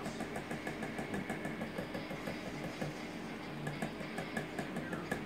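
Small spice container of ground cinnamon shaken hard over a blender jar: a quick, steady rattle of taps, several a second, as the cinnamon is slow to come out.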